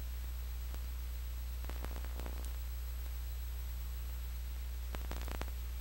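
Steady low electrical hum with hiss, broken by a few faint clicks and crackles; no other sound.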